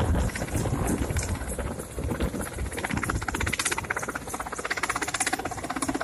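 Mi-8 helicopter hovering with a slung load, its rotor beating in a fast, steady pulse. Wind buffets the microphone, most strongly near the start.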